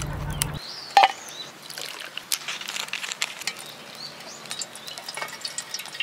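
Soju poured from a bottle into an aluminium mess tin: a thin trickling stream with small irregular splashes and clicks, one sharper click about a second in. A low steady hum cuts off about half a second in.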